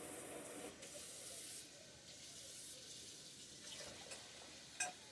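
Kitchen tap water running into the sink as a mixing bowl is rinsed out, easing off after the first second or so. A short clack near the end.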